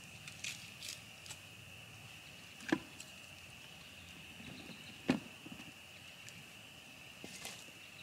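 A steady, high-pitched chorus of frogs chirping in the night, with a few faint clicks and two sharper pops a little over two seconds apart.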